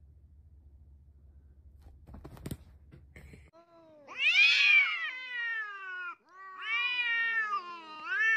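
Cat caterwauling, the threat yowl of two cats in a standoff: one long wavering wail starting about halfway in, then a second, ending with a short rising cry. Before the yowling there is only a faint hum and a light knock.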